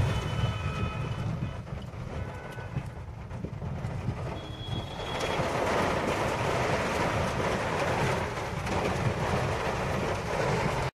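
Cabin noise of a Suzuki car driving in heavy rain: a steady low engine and road rumble under the hiss of rain on the windscreen and body. The rain hiss thickens and grows louder about five seconds in.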